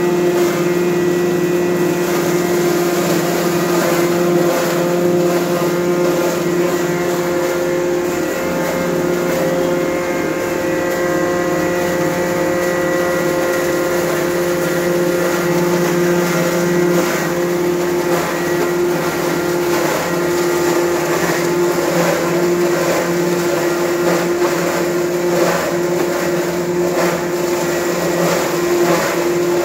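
Ginger garlic paste grinding machine running steadily under its electric motor, a constant hum with a higher whine over it. From about halfway on, light irregular clatter as garlic cloves are scooped from the steel hopper and fed in.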